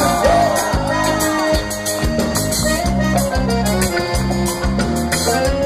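Live band playing an instrumental passage between sung lines: drums keeping a steady beat under electric bass, guitar and a held keyboard note.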